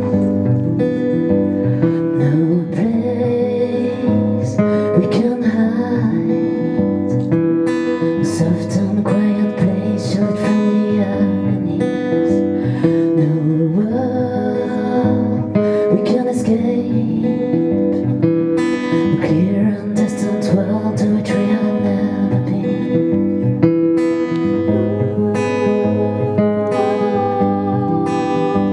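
A woman singing while strumming an acoustic guitar, a solo live performance.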